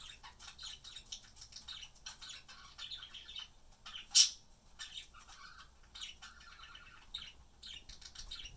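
Budgerigars chirping and chattering in a rapid string of short, high calls, with one loud, sharp squawk about four seconds in.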